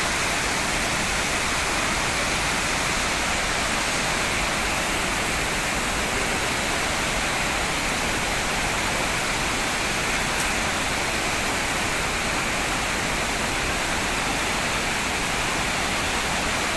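Waterfall and fast river water rushing, a steady even roar of falling water.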